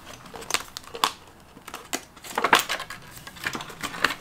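Paper banknotes rustling and flicking as a stack of bills is handled, with crinkles from clear plastic binder envelopes. The sound is an irregular run of short, crisp crackles, busiest about two and a half seconds in.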